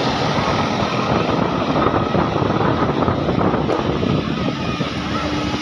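Steady, loud roar of a large road vehicle, most likely a bus, passing close by: engine and tyre noise, with wind buffeting the microphone. No horn sounds in it.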